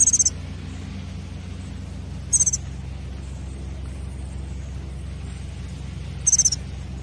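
Small bird giving three short, very high-pitched chittering calls, each a quick run of notes, a few seconds apart, over a steady low hum.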